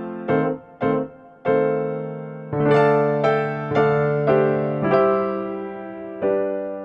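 Background music: a slow piano melody, single notes and chords struck one after another and each left to fade. A fuller chord comes in about two and a half seconds in, and the last note near the end is left ringing.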